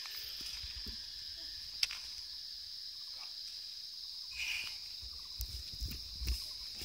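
Steady high-pitched drone of insects calling, with one click about two seconds in and a few low bumps near the end.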